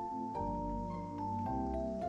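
Background music: a slow, calm melody of soft held notes on a tuned mallet-type instrument, the notes changing about every half second.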